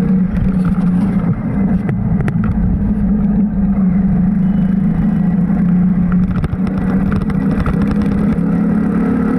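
Motor vehicle on the move, its engine holding a steady low hum over a low road rumble.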